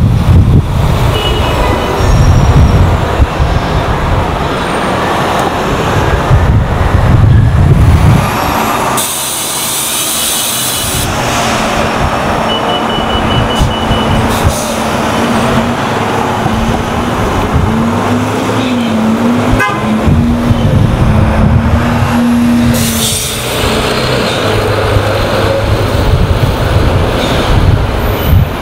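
City transit buses and traffic on the street, with wind buffeting the microphone for the first part; a short horn toot is among the traffic sounds.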